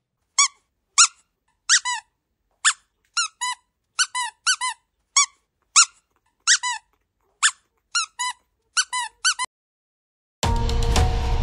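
A squeaky dog toy squeezed over and over: about twenty short, high squeaks at an uneven pace, some single and some in quick pairs or threes, each bending in pitch. About a second before the end, music with drums starts.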